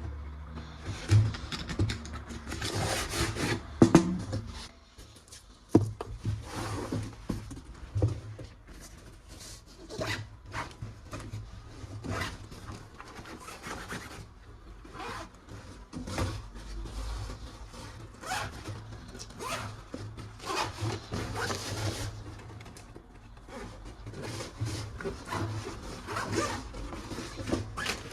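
Plastic toy gun parts and packaging being handled: irregular rustling and scraping with scattered sharp clicks and knocks, a few of them louder in the first six seconds.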